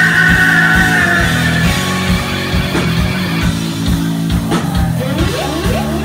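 Live rock band playing: electric guitars, bass and a steady drum beat, with the singer's voice. A high held note fades out about a second and a half in.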